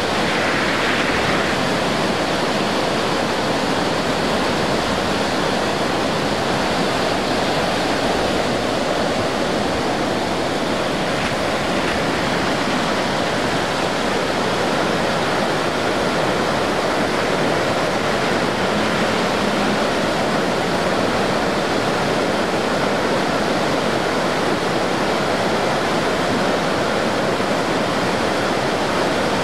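Flood-swollen creek rushing and churning over boulders: a loud, steady rush of muddy floodwater.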